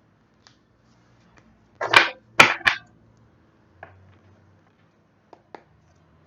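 Tarot cards being handled: a few faint clicks, then three loud, sharp snaps of card on card or on the table about two seconds in, and a few more faint taps afterwards.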